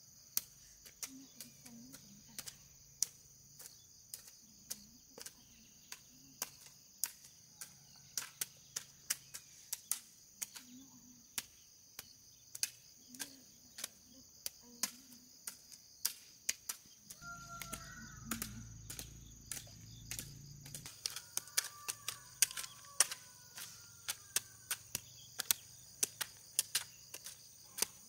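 Insects shrilling steadily in a high band, with sharp clicks or knocks one or two a second throughout. A low rumble swells for a few seconds midway, and birds chirp in the second half.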